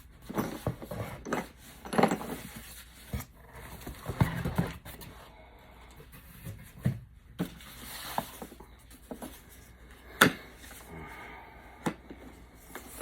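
Irregular knocks, clicks and rustling of a tool's packaging being handled and opened by hand, with one sharp knock about ten seconds in.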